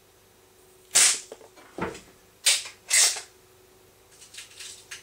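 Baikal IZH MP-53M spring-piston air pistol (.177) firing at a paper target, its spring freshly bevelled and greased with moly: a sharp crack about a second in and two more loud cracks about half a second apart near the middle, with smaller clicks and a low thump between them. Softer mechanical clicks follow near the end.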